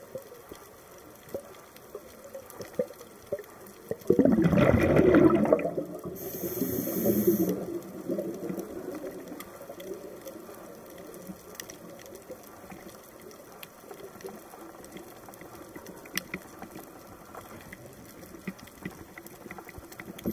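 Underwater: a scuba diver's exhaled breath bubbling out of the regulator, a loud gurgling rush about four seconds in that lasts a couple of seconds and then fades, with a brief high hiss near its end. Around it, a faint watery hiss with scattered small clicks.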